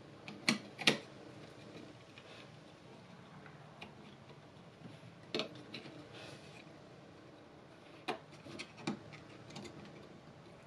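Scattered small plastic clicks and taps, about eight, as the parts of a Corsair M65 mouse are handled and fitted back together; the two sharpest come about half a second and a second in.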